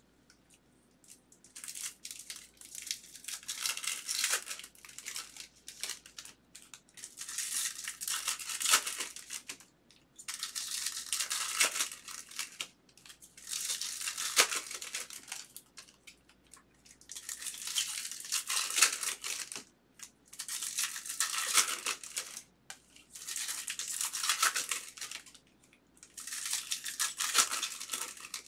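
Foil wrappers of Bowman baseball card packs being torn open and crinkled by hand, in about ten rustling bursts a few seconds apart.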